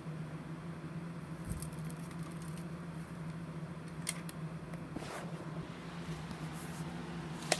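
A VHS cassette being handled: a few faint clicks and rustles over a steady low hum, with a sharper plastic click near the end that is the loudest sound.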